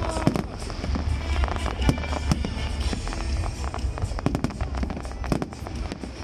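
Aerial fireworks display: shells bursting overhead in rapid, overlapping bangs and crackles over a low rumble.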